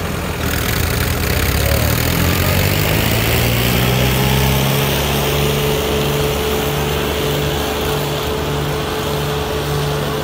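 Two tractors' diesel engines running hard under full load, a Mahindra Arjun 605 and a Sonalika pulling against each other in a chained tug-of-war. The engine note climbs over the first few seconds and then holds steady.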